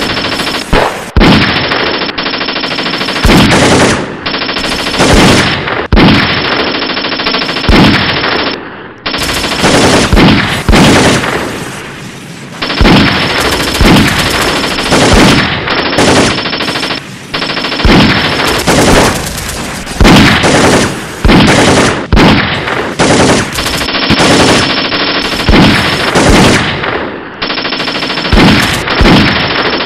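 Gunfire in a long exchange: repeated bursts of automatic fire, with loud shots every second or two.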